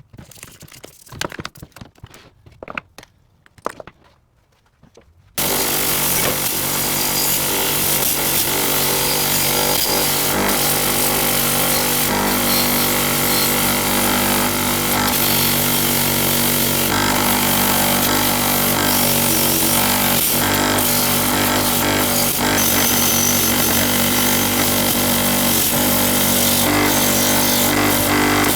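A few light handling clicks and rustles, then about five seconds in a power tool starts abruptly and runs steadily and loudly with a constant motor hum.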